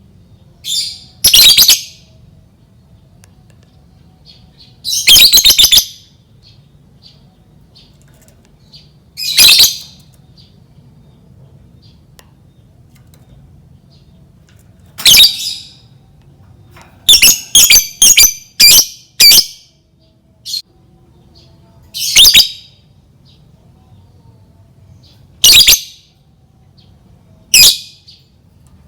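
Lovebird giving loud, shrill chattering calls in short bursts every few seconds, with a quick run of several calls about two thirds of the way through.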